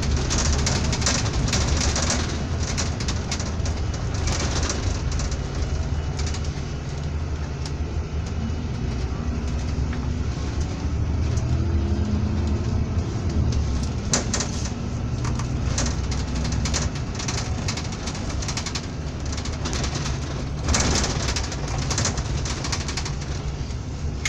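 Ride noise inside a moving bus: a steady low engine rumble with frequent rattles and knocks from the cabin, and a louder clatter about 21 seconds in.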